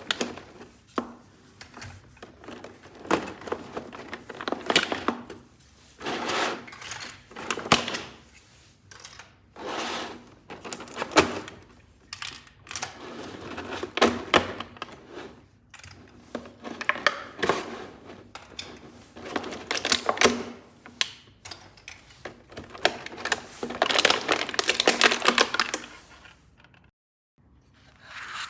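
Small plastic toy pieces and packaging being handled and unboxed: a long run of clicks, taps and short rustling scrapes, with a denser stretch of crackling rustle a little before the end, then a brief dead gap.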